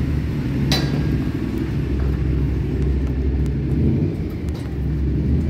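A motor vehicle's engine running close by, a steady low rumble, with a single sharp click less than a second in.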